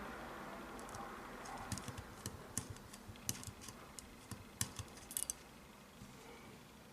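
Light, sharp clicks and taps in an irregular run, from parts of a partly disassembled Smith & Wesson 686 revolver being handled. The clicks stop a little after five seconds in.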